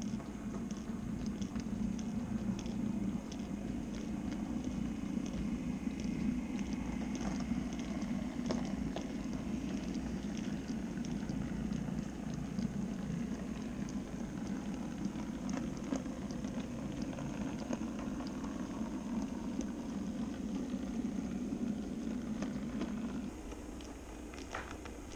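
N-scale model train running on the layout track: a steady rumble with many light clicks of wheels over rail joints. It drops noticeably quieter near the end.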